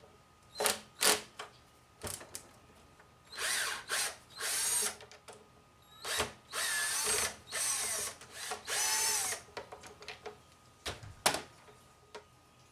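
Power drill/driver running in several short spurts, its motor whine rising and falling in pitch as it backs out the screws holding the blower's plastic cover. A few sharp clicks of handling come between the spurts.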